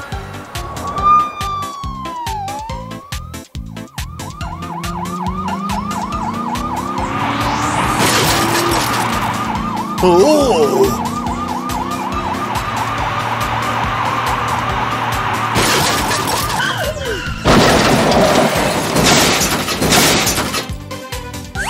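Police siren wailing rapidly up and down for about twelve seconds, starting about four seconds in, over background music. Loud crash noises follow near the end.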